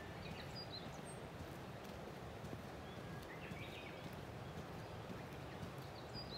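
Footsteps of a person walking at a steady pace, over a steady low rumble, with a few faint bird chirps.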